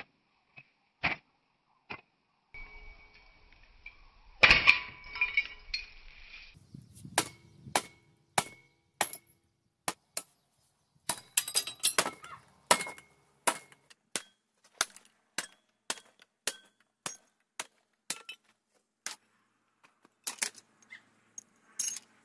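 Metal parts of an outboard motor clinking and knocking, each hit with a short ring. A few scattered clinks come first, then a rattling clatter from about three to six seconds in, loudest near four and a half seconds, then a run of sharp knocks about once or twice a second.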